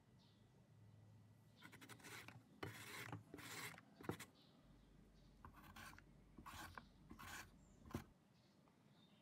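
A peeled half-ripe mango rubbed across the metal teeth of a plastic julienne grater, shredding it: two runs of short rasping strokes, about half a dozen each, with a brief pause in the middle.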